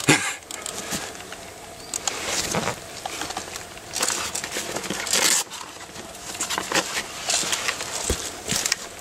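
Irregular rustling and scuffing of clothing, gear and footsteps on the forest floor as a player gets up and runs, with scattered clicks and several louder bursts of noise.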